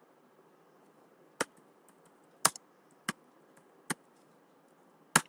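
Computer keyboard keystrokes: about five separate, sharp key clicks at uneven intervals, with fainter taps between them.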